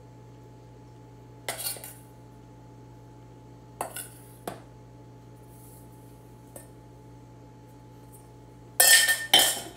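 Metal spoon scraping and clinking against a stainless steel mixing bowl while flour is spooned out: a few short scrapes, then two louder clatters near the end as the bowl is tipped over the mixer jar.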